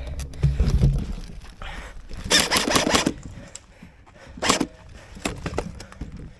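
Airsoft gun firing a rapid full-auto burst lasting under a second, about two seconds in. A single short sharp crack follows about a second and a half later, with low thumps of movement near the start.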